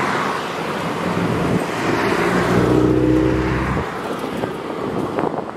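Engine and exhaust of a lowered Toyota 86 driving slowly past at low revs. It is a steady engine note that swells to its loudest about three seconds in, then drops away sharply before four seconds, over continuous outdoor background noise.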